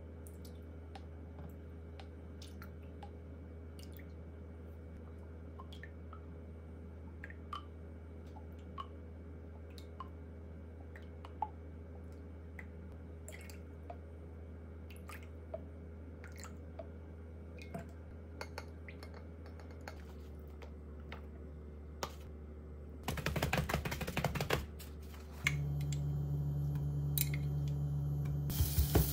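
Scattered light clicks and taps of a wooden spoon against a small glass bowl as a soy-sauce mixture is stirred, over a low steady hum. Near the end a louder burst of noise comes in briefly, followed by a steadier, louder hum.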